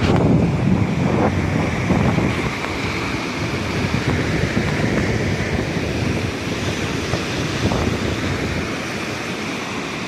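Caspian Sea waves washing ashore, with strong wind buffeting the microphone.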